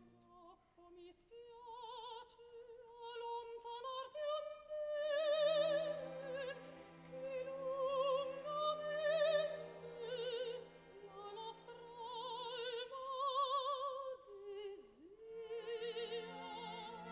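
Female opera singer singing with wide vibrato over a soft orchestral accompaniment. The voice enters about a second in and breaks off briefly near the end before going on.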